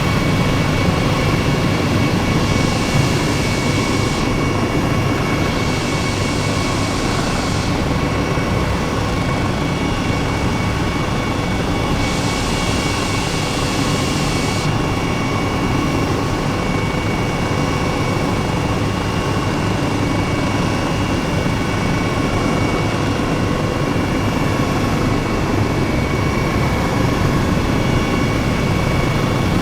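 Steady jet-engine drone with a constant high whine, and three brief bursts of extra hiss in the first half.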